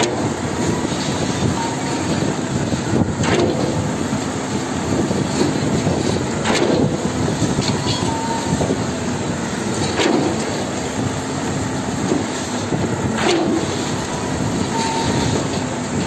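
Concrete pump truck running steadily while pumping concrete. A knock comes about every three seconds as the pump changes stroke.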